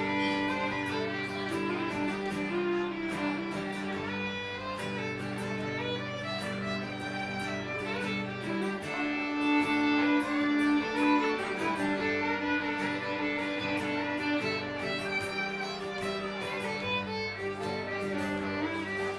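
Fiddle solo: a bowed melody over strummed acoustic guitar, played live by a country band.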